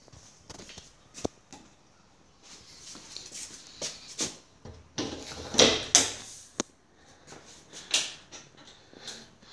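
A metal-framed frosted-glass door being handled and opened: a run of clicks and rattling scrapes, with a sharp click about a second in and the loudest rattle just past halfway.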